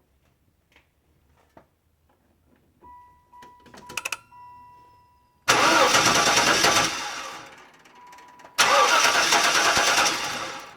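A 1994 station wagon's starter cranking the engine in two attempts of about two seconds each, with the engine not catching: a no-start. A steady electronic tone and clicks of the ignition key come before the first attempt, and the tone sounds again briefly before the second.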